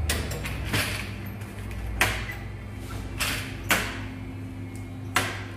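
About six sharp knocks and clicks, some ringing briefly, over a steady low hum.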